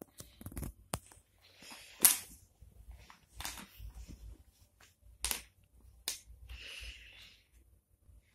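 Wooden Tetris-shaped puzzle pieces clacking against each other and the wooden tray as they are handled and fitted in: about five sharp clacks spread over several seconds, the loudest about two seconds in, with soft rustling between them.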